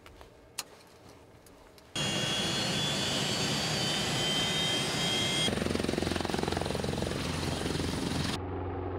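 A twin-turbine helicopter runs loudly, its turbines giving a high steady whine over the noise of the rotor. It starts suddenly about two seconds in, after a quieter stretch with a single click. The sound shifts abruptly twice, to a lower, heavier hum as the helicopter lifts off.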